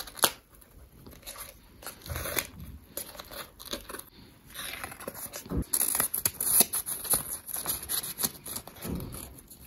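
Handling of a string-tied bundle of paper journaling cards: paper rustling and scraping with small clicks as the string is worked loose and the cards are moved, busiest in the second half.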